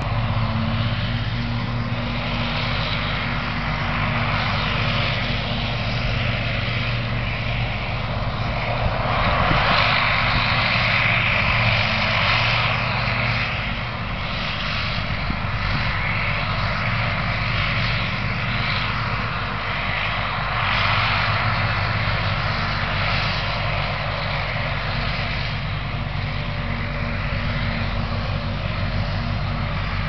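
Self-propelled forage harvester working in silage, with a steady deep engine drone under a broad rushing noise. The rushing swells for a few seconds about nine seconds in and again near twenty-one seconds.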